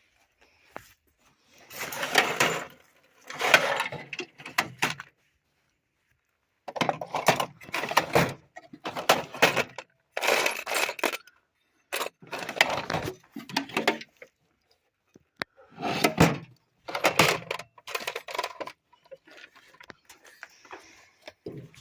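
Small loose metal hardware clattering as toolbox drawers are rummaged through for small nuts and bolts: about eight bursts of rattling, each a second or so long, with short pauses between.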